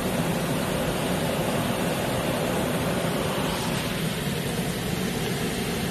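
Heavy rain pouring down in a thunderstorm, with gusting wind, as a steady, even rush without thunder or other distinct events.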